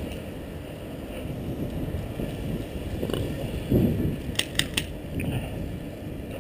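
Rustling and bumping of a body-worn GoPro as the player moves, with a heavier thump a little before four seconds in. There are three quick sharp clicks about a second later.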